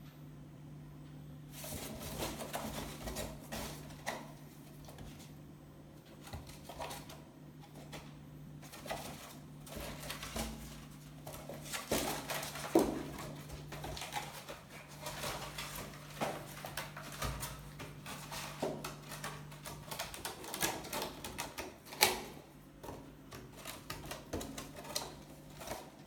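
A kitten making irregular clicking, tapping and rattling noises as it moves about and handles something, with two sharper knocks. A steady low hum lies underneath and drops out for a few seconds near the end.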